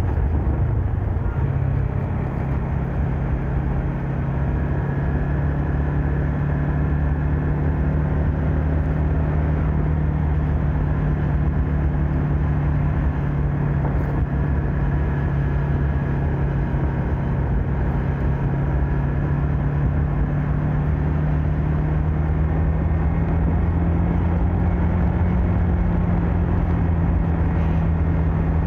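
Yamaha MX King 150's single-cylinder four-stroke engine running while the motorcycle is ridden along the road, heard from a phone mounted on the handlebars. The engine note falls in pitch during the first second, then holds steady, and rises slightly near the end.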